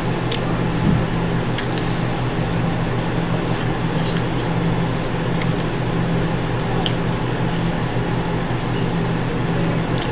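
A person chewing a mouthful of custard pie close to the microphone, with a few short wet mouth clicks. A steady low hum and hiss run underneath.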